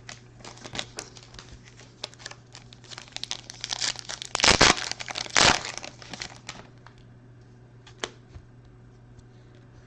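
Trading-card pack wrapper being handled and torn open: crinkling and crackling for several seconds, with the loudest rips about four and a half and five and a half seconds in, then a few light clicks.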